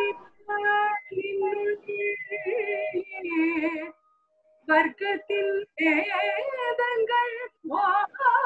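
A woman's solo voice singing a Tamil venba verse in Carnatic style, unaccompanied, with held notes that waver and bend in pitch. The singing breaks off briefly about four seconds in, then resumes.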